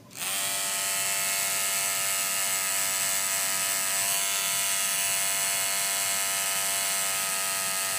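Tattoo machine switching on at the start, then buzzing steadily at one even pitch as the needle works ink into the skin of a wrist.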